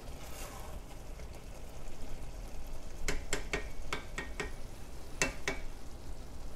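Wooden spoon stirring rice in liquid in a cast-iron pot over a low gas flame, with a quiet background sizzle. About halfway through comes a quick run of sharp knocks as the spoon hits the pot.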